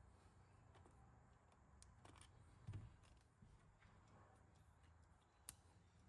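Near silence: faint room tone with small handling sounds of plastic RC model parts, a soft knock a little before halfway and one sharp click near the end.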